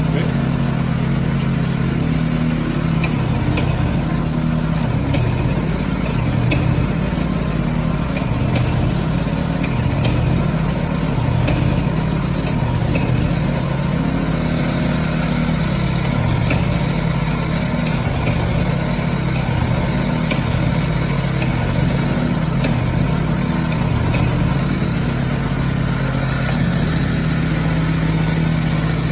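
A paint-spraying machine running steadily with a low, engine-like hum, while a high hiss of spraying paint starts and stops several times.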